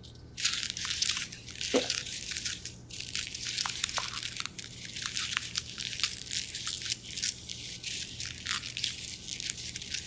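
Paper being crumpled and crinkled, a dense run of crackles with a short break about three seconds in.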